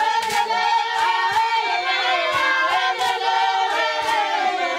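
A group of women singing together, several voices at once, with short percussive thumps sounding under the voices at intervals.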